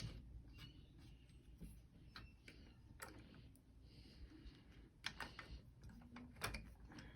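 Near silence with a few faint clicks and taps, scattered through the middle and later part: small metal parts of a bow vise being handled and pressed into place.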